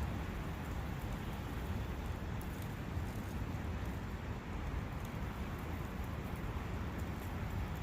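A forest brook running with a steady, even rush of water and faint scattered drips and splashes.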